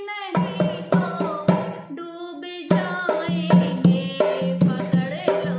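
A woman singing a Hindi devotional bhajan, joined about a third of a second in by a hand drum beating a steady rhythm. The drum eases off briefly around two seconds in, then carries on.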